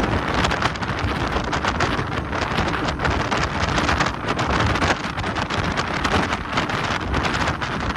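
Heavy wind buffeting the microphone aboard a Ribeye 811 rigid inflatable boat running fast, with the boat's engine and water noise underneath.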